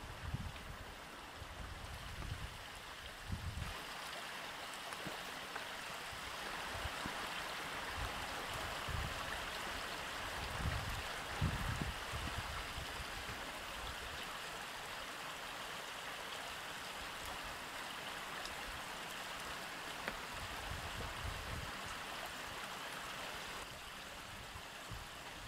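Steady rushing of running water, like a brook, with occasional low rumbles underneath.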